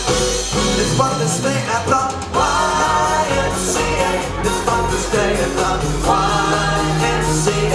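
Live band playing an upbeat rock/pop number: female lead vocal over drums, electric guitar and bass. The bass and low end drop out briefly about a second in, then the full band comes back in about two and a half seconds in.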